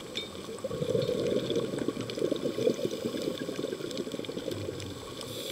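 Scuba diver's exhaled bubbles gurgling from the regulator, heard underwater through the camera housing, swelling about a second in, with faint scattered clicks over it.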